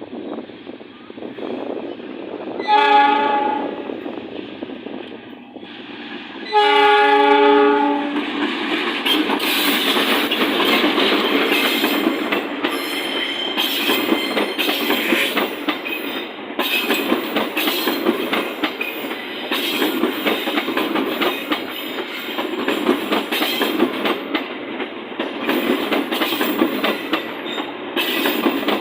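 Train horn blown twice: a short blast, then a longer one a few seconds later. The train then passes close by with a steady rumble and rapid clickety-clack of wheels over the rail joints.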